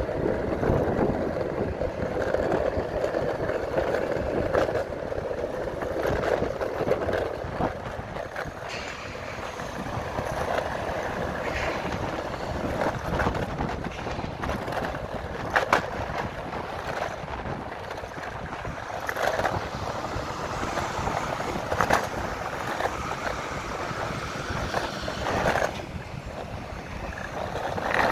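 Meepo electric skateboard rolling over asphalt: a steady rumble from the wheels on the road surface, with a few sharp knocks about halfway through and again in the later part.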